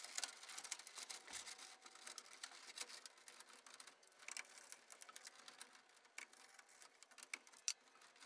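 Faint, irregular small clicks and rustling of electrical wires and breakers being handled inside a breaker panel.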